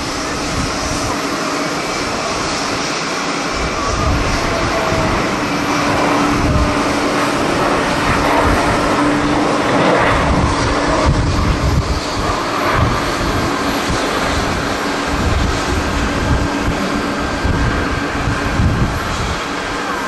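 Boeing 737-800 jet engines at takeoff thrust: a steady roar that grows louder as the airliner rotates and lifts off about ten seconds in, with strong wind buffeting the microphone in irregular low gusts.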